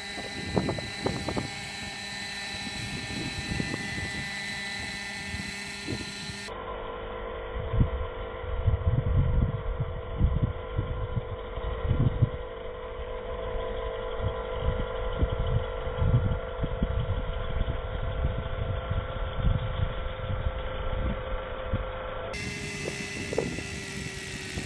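Radio-controlled scale BO 105 model helicopter built on T-Rex 600 mechanics, hovering low: a steady whine from the drive and rotors, with irregular low rumbles. The sound changes abruptly about six seconds in and again near the end.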